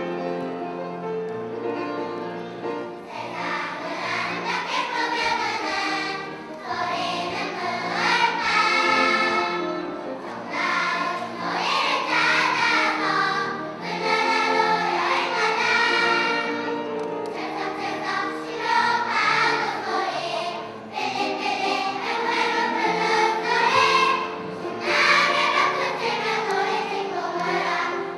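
A large choir of kindergarten children singing together over a steady instrumental accompaniment. The accompaniment plays alone at first, and the children's voices come in about three seconds in, then carry on phrase after phrase.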